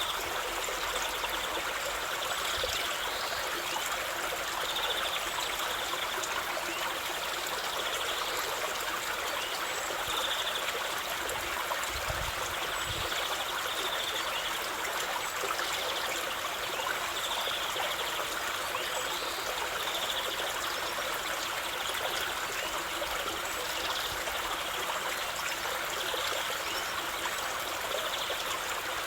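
Waterfall: a steady, even rush of falling water, with faint bird chirps here and there.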